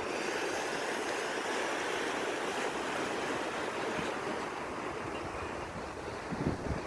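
Ocean surf on a beach: a steady rush of breaking and washing waves, with low buffeting of wind on the microphone near the end.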